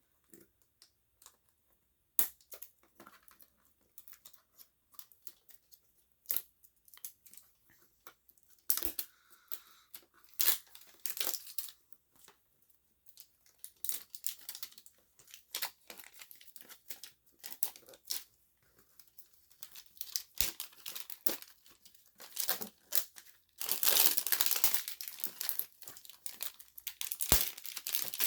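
Shipping packaging being torn open and handled by hand: irregular rips and rustles of packing material, turning into continuous crinkling over the last few seconds.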